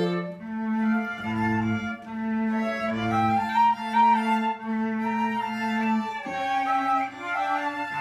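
Violin, flute and cello trio playing a slow hymn in long held notes, with the cello holding low notes beneath the upper parts.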